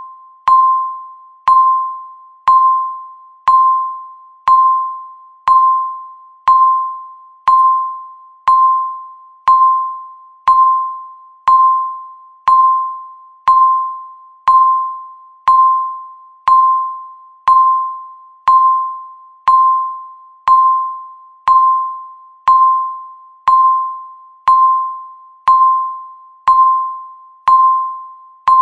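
Countdown timer beep: one electronic tone struck once a second, each beep starting sharply and fading away before the next, marking off each second left on the count.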